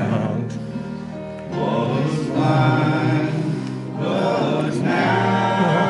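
Congregation singing a hymn in slow, sustained phrases over steady low accompanying notes.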